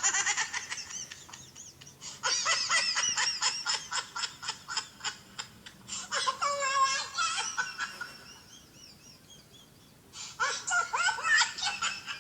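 A 'drunk Smurf' sound clip played from a phone: a high-pitched, sped-up cartoon voice babbling and laughing in three bursts, with short pauses about two seconds in and again around eight to ten seconds.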